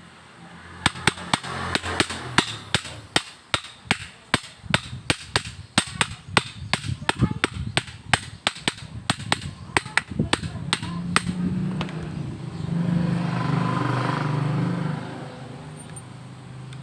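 Repeated sharp metal taps, about two to three a second for roughly ten seconds, like light hammering during alternator reassembly. A steady low hum then rises for a few seconds and fades.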